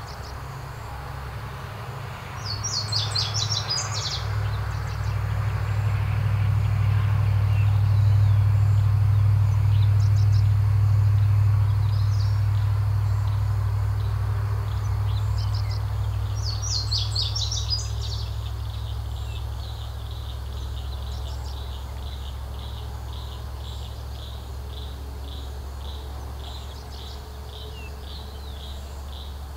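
A low drone swells and slowly fades, loudest about a third of the way through. Over it a small songbird gives two short high trills, and a run of quick, regular high chirps follows in the second half.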